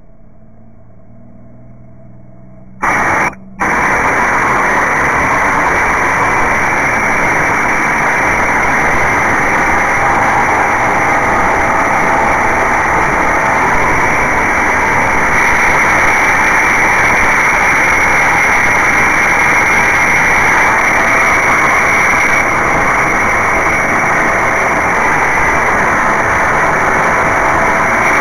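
Spitfire Mk IX's Rolls-Royce Merlin V12 engine at full power for the takeoff run and climb, heard with heavy wind rush on a camera mounted on the airframe. About three seconds in, the sound jumps abruptly from a quieter low hum to a loud, steady noise that holds to the end.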